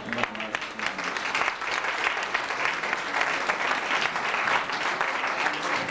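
Audience applauding after a couplet of poetry is recited, a dense, even clatter of many hands clapping.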